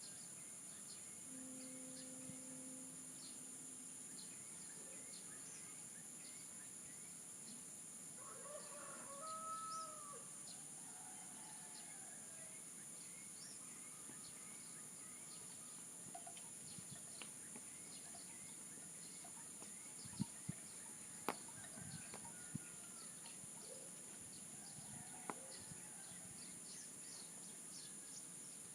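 Rural morning soundscape: a steady high insect drone under many small-bird chirps, with a chicken calling once about nine seconds in. A few sharp clicks are heard around twenty seconds in.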